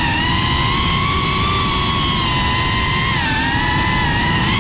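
FPV racing quadcopter's brushless motors and propellers whining, the pitch wavering up and down with throttle, with a dip a little after the middle, over a heavy rush of propeller wash and wind.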